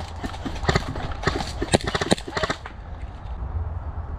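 Footsteps of a person moving quickly over a woodland path, irregular knocks about two to three a second, with rustling of brush and gear.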